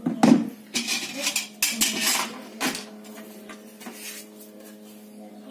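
Clattering and knocks of hard parts and tools being handled while refrigerator parts are put back together, mostly in the first three seconds, over a steady low hum.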